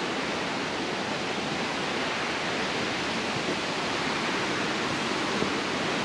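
Maral Waterfall's water rushing: a steady, even hiss of falling water with no breaks.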